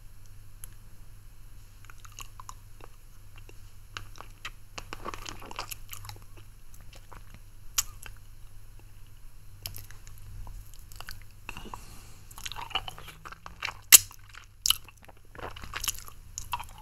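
Close-miked mouth sounds of a person sucking a lollipop: scattered wet clicks and smacks, with two sharp, louder clicks a little over three-quarters of the way through.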